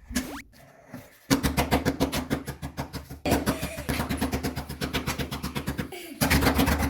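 Background music with a fast, steady drum beat over a sustained bass line, preceded by a short rising tone near the start.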